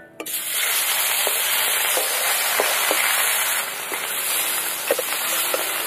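Datne fish pieces, rubbed with salt and turmeric, going into hot mustard oil in a wok and at once setting off a loud, steady frying sizzle with spattering oil. A few sharp clicks of the steel spatula against the pan come through the sizzle.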